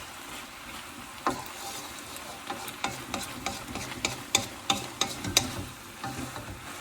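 Mince, vegetables and sauce sizzling in a hot wok as they are stir-fried, with the stirring utensil knocking and scraping against the wok in a run of sharp clicks, most of them in the middle of the stretch.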